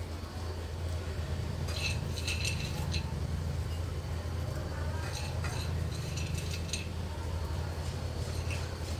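Light clicks and clinks of chopped cashews, almonds and pistachios being picked by hand off a ceramic plate and scattered over vermicelli in a glass bowl, coming in a few small clusters, over a steady low hum.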